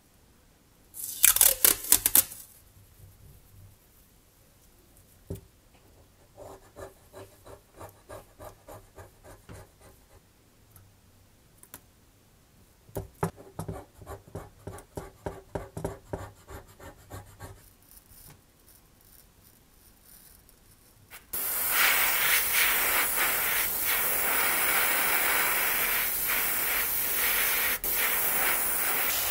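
Scalpel drawn in short rhythmic strokes, about two a second, cutting masking tape laid on a plastic scale-model car body, after a brief rasping burst near the start. About 21 seconds in, an airbrush starts spraying paint with a loud steady hiss.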